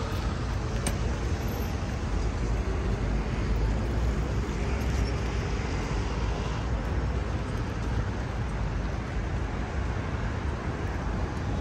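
Steady city street traffic noise: a constant rumble of road vehicles with no single event standing out.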